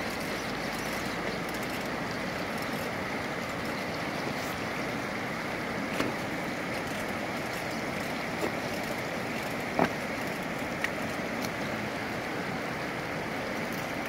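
River water rushing steadily, with a few brief knocks, the clearest about six and ten seconds in.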